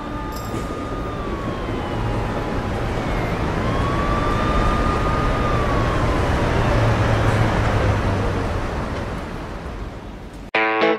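City street traffic rumble with an emergency vehicle siren wailing, its pitch slowly rising and falling. The street noise and siren cut off suddenly near the end.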